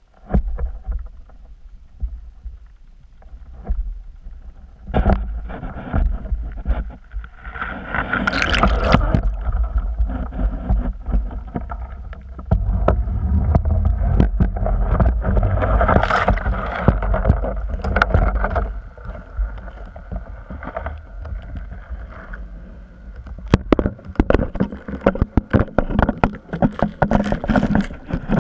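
Underwater handling noise from a GoPro in its waterproof housing as it is pulled up from the lake bed: a muffled rumble of rushing water with many knocks and clicks against the housing. The clicks come thicker near the end as the camera reaches the surface.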